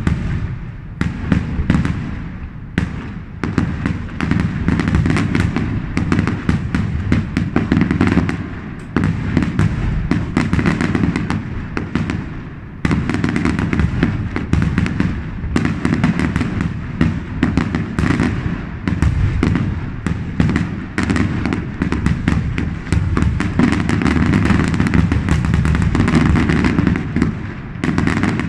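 Aerial fireworks display: many shell bursts in quick succession with a dense crackle between them, broken by a few short lulls, falling away suddenly at the end.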